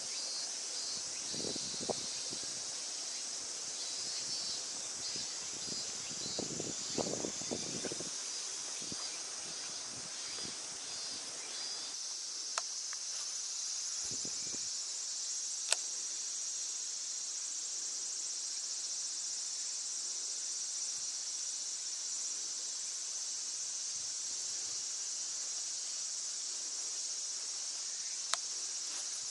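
Summer cicadas shrilling in a continuous high chorus, pulsing for the first dozen seconds and then steadier. A few soft handling knocks come early on, and a handful of sharp single clicks come later.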